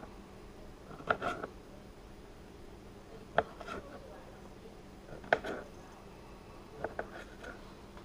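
Kitchen knife cutting small yellow pear tomatoes on a cutting board: a sharp tap of the blade on the board about every two seconds, four cuts in all, the last a quick double tap.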